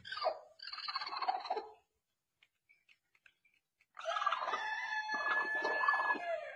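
A hen sitting on her nest calls in two noisy bouts, the first lasting under two seconds and the second starting about four seconds in, while she pecks at a hand reaching under her. This is the defensive protest of a broody hen guarding her nest.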